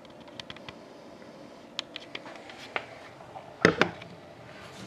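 Handling noises from a sealed cardboard hockey-card box: scattered light clicks and taps, then two sharp knocks close together about three and a half seconds in, as the box is set down on a table.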